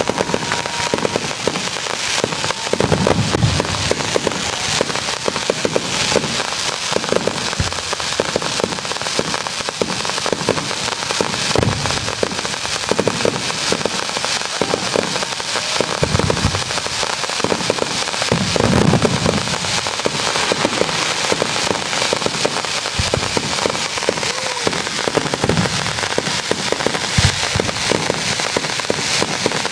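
Fireworks display: a dense, continuous crackling of many small bursts, with deeper booms of shells bursting every few seconds.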